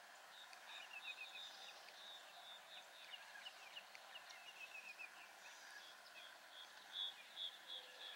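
Birds calling faintly over quiet outdoor ambience: repeated short high calls and quick twittering runs of notes, with a few louder calls about seven seconds in.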